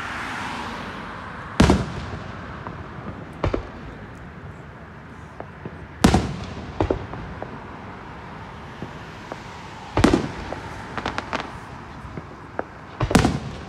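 Aerial firework shells bursting in the sky: four loud booms about every three to four seconds, with smaller pops and crackles between them.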